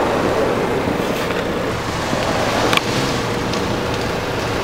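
Steady noise of a car idling, with one sharp click a little under three seconds in.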